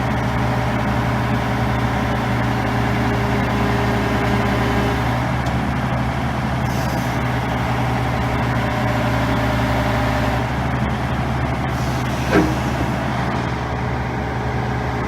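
Hitachi ZX450LC excavator's diesel engine running steadily under hydraulic load as the boom lifts the bucket and presses it down, for a swing-bearing play check. About 12 seconds in there is a brief squeak that falls in pitch.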